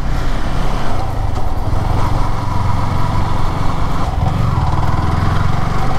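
Yamaha R15 V3's 155 cc single-cylinder four-stroke engine running steadily as the motorcycle rides at low speed.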